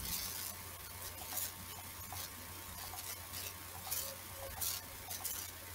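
Faint, irregular clicks and light rustles from a computer mouse being used, over a low steady hum.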